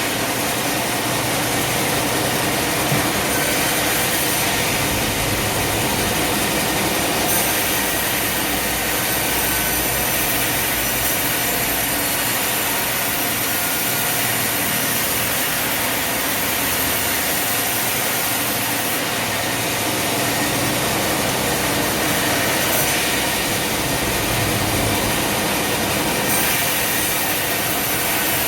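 Sawmill machinery running steadily, with an engine drone mixed with sawing through wood.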